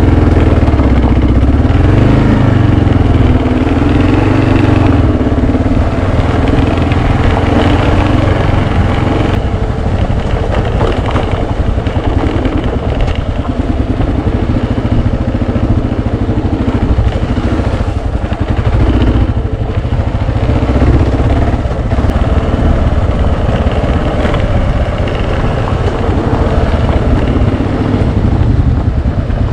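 Adventure motorcycle engine running under way, its note rising and falling with the throttle in the first few seconds, then running on more evenly, over a rough noisy rush.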